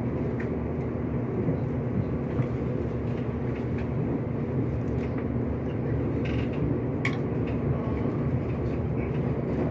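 Nankai limited express train running at speed, heard inside the passenger cabin: a steady rumble of wheels on track with a low, even hum and a couple of brief clicks.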